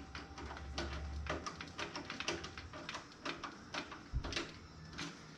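Irregular light clicks and taps of small hard parts being handled and fitted while a PC is assembled inside a sheet-metal toaster oven case, with one dull thump about four seconds in.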